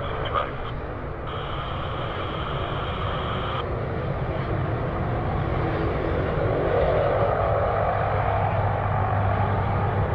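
Turboprop engines of a Convair CV-580 running as the airliner taxis, a steady drone. A low hum grows louder over the second half.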